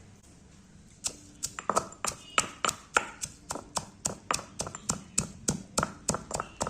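Rapid, even strikes of a kitchen tool, about four a second, starting about a second in, as in pounding or chopping while preparing rasam.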